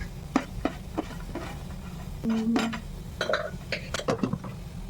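Dishes and utensils clinking: a string of light, irregular clinks, with a brief low tone about two and a half seconds in.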